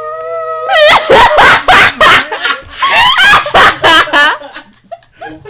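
A dog's loud, wavering yowling and whining, a run of rising and falling cries for about three and a half seconds, set off by being buzzed at. It is preceded by a short steady buzzing tone at the start.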